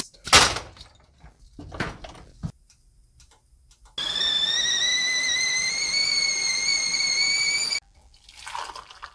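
Stovetop whistling kettle whistling at the boil: one loud, steady whistle of about four seconds, its pitch rising slightly, which cuts off suddenly. A few clunks come before it.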